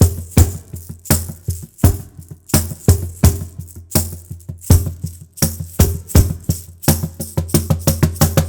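Plastic finger shaker with small stainless-steel beads rattling on each stroke of the hand, in a steady rhythm of about two to three strokes a second, each stroke with a deep thump under it. The strokes come faster and closer together near the end.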